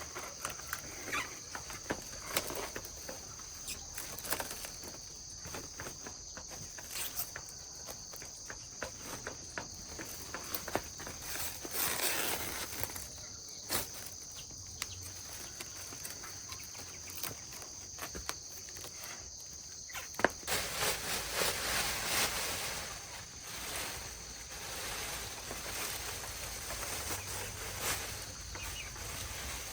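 A steady, high-pitched insect chorus with scattered light clicks and knocks. About twenty seconds in, the insect sound cuts off suddenly and a broader rustling noise takes over.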